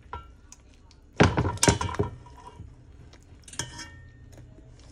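A metal fork clanking and scraping against a metal pot as a chuck pot roast is lifted and turned in its juices: a burst of clatters with a ringing tone about a second in, and a shorter one past the middle.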